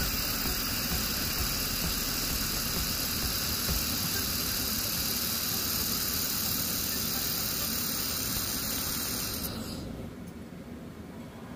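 Laser welder running a bead with filler wire: a steady, loud hiss that stops abruptly about nine and a half seconds in.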